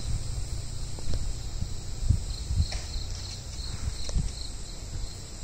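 Forest insects droning steadily at a high pitch, with a short run of quick chirps about three seconds in, over a low rumble.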